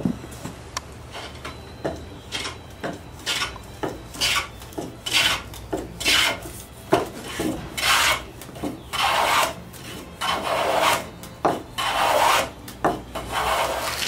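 Wooden stave pushed repeatedly along a cooper's long jointer plane, each stroke a rasping shave as the iron cuts the stave's edge. The strokes come a little under a second apart and grow longer and louder in the second half.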